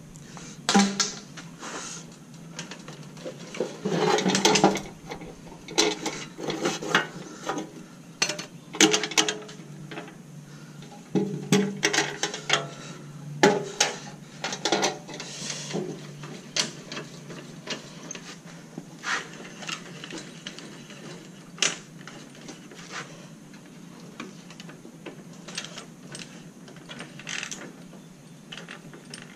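Metal ammo can and parts handled on a wooden workbench: irregular knocks, clanks and rattles in clusters, busiest in the first half, with quieter gaps between.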